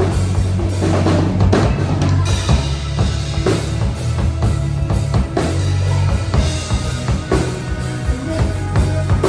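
Live rock band playing the song, led by a drum kit with kick and snare keeping a steady beat over deep sustained bass notes.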